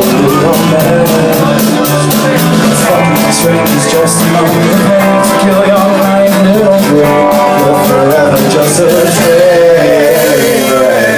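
A live rock band playing: strummed acoustic guitar, sung vocals and drums keeping a steady beat.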